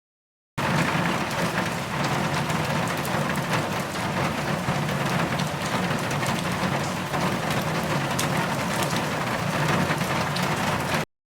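Heavy rain pattering steadily, a dense hiss full of fine drop ticks. It starts abruptly about half a second in and cuts off suddenly near the end.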